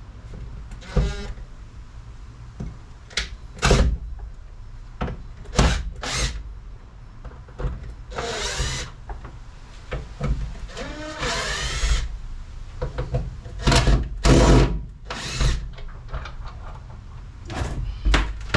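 Cordless drill running in a string of short bursts, with two longer runs whose motor pitch rises and falls, as screws are backed out to take a solar charge controller off the wall.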